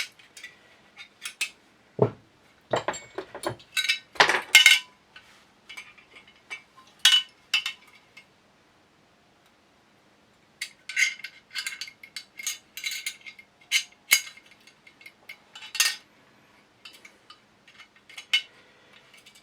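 Small steel gun parts of a Sjögren shotgun clicking and clinking against each other and the receiver as they are handled and fitted. The clicks come irregularly, some sharp and loud, with a pause of about two seconds midway.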